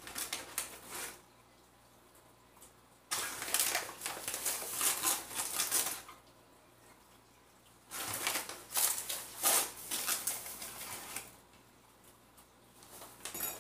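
Granulated sugar poured from its plastic bag into a measuring cup, with the bag rustling, in three grainy, hissing bursts of a few seconds each with quiet gaps between.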